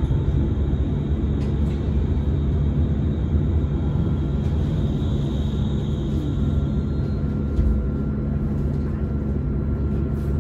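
Solaris Urbino 18.75 electric hydrogen fuel-cell articulated bus driving, heard from inside the passenger cabin: a steady low rumble of the running gear and road, with thin steady whines above it. The highest whine strengthens about halfway through and fades out near seven seconds.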